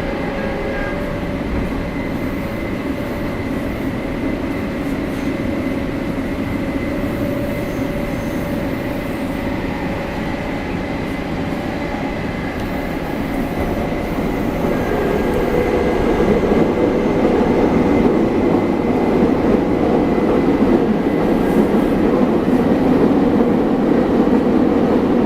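Running noise inside a Nagoya Municipal Subway 6000-series car under way, with the steady whine of its GTO-thyristor VVVF traction inverter over wheel and rail rumble. About fifteen seconds in the running noise grows louder.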